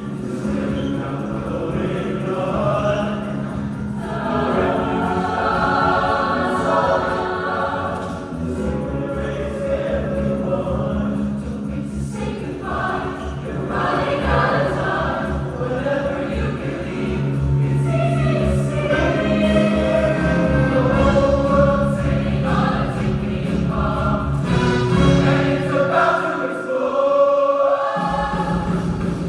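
A choir singing sustained chords over instrumental accompaniment. Near the end the bass drops out for about a second, then comes back.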